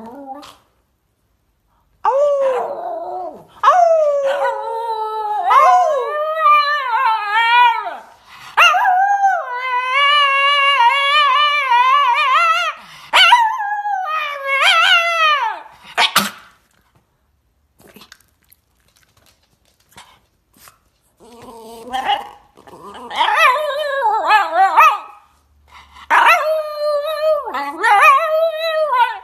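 Shiba Inu howling: long, wavering, pitched cries in two bouts, with a pause of about five seconds in the middle.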